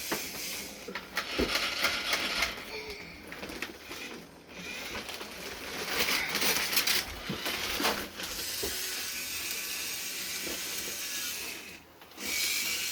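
Wrapping paper and packaging rustling and tearing in irregular scratchy bursts with small clicks as presents are unwrapped.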